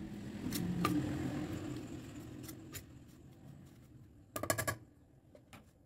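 A spoon stirring flour and grated coconut in a stainless-steel bowl: soft scraping with light clicks, fading after about three seconds, then a brief clatter about four and a half seconds in.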